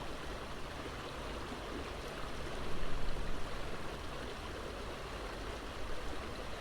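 Creek water flowing and rushing steadily, with a brief louder swell a little under halfway through.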